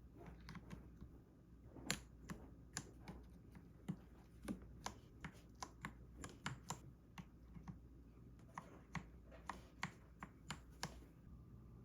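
Typing on a Royal Kludge RK84 mechanical keyboard with brown switches: an irregular run of key clacks, several a second, a few strokes much louder than the rest, stopping about eleven seconds in.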